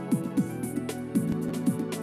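Background music with a steady electronic beat.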